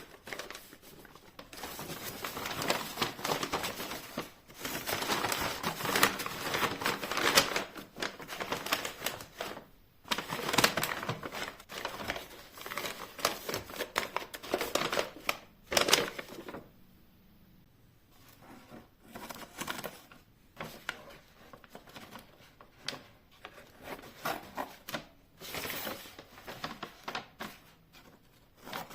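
Close hand-handling noises of materials being worked: dense crinkling and rustling for about the first half, then scattered clicks, taps and short rustles.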